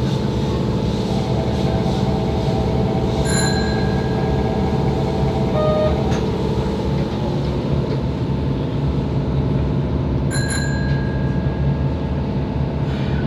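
Steady rumble inside a Kobe Municipal Subway 3000 series car, with faint steady whining tones that die away about halfway through. Two short bell-like chime dings sound about seven seconds apart.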